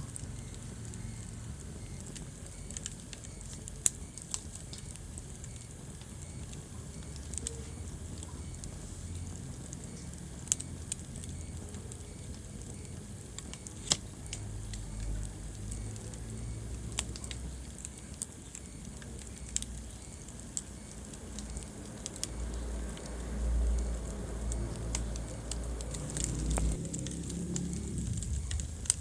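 Wood fire burning in a fireplace: a low, uneven rumble of flames with scattered sharp crackles and pops, the rumble swelling for a few seconds near the end.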